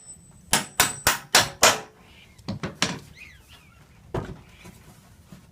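Small hammer striking the head of a carriage bolt, driving it into a wooden chair's leg/arm piece: about five quick, sharp strikes in the first two seconds, then a few lighter knocks.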